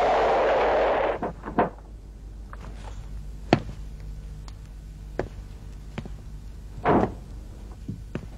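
A car's running noise stops about a second in; then a car door is unlatched and opened with a sharp click, a few light footsteps and knocks follow, and the door is pushed shut with a heavier thud near the end.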